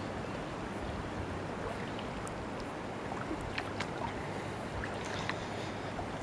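Steady rushing outdoor background noise. About halfway through come a few light crackles and snaps of dry twigs and leaves under footsteps.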